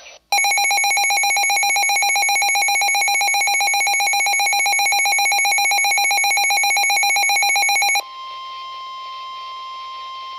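Emergency Alert System attention signal: a loud, harsh, fast-pulsing alarm tone for about eight seconds, which drops at once to a quieter steady single tone. It marks the start of a severe thunderstorm warning broadcast.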